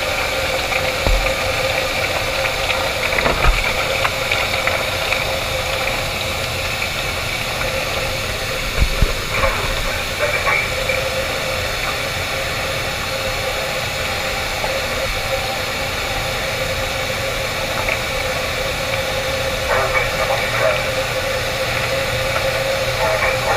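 Steady machinery drone with a constant hum and hiss, broken by a few faint low thuds.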